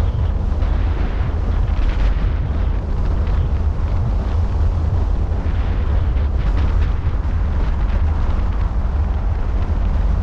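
Wind buffeting the microphone of a camera mounted on the roof of a car driving at highway speed: a loud, steady low rumble mixed with road noise.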